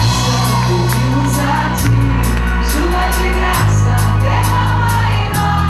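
A woman singing a Catholic worship song into a microphone with a live band: held bass notes that change every couple of seconds under a steady cymbal beat.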